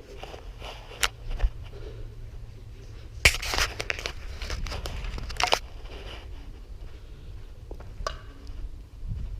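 Crunching and scraping of crushed debris, with a few sharp clicks early, then a dense, loud burst of crunching from about three to five and a half seconds in.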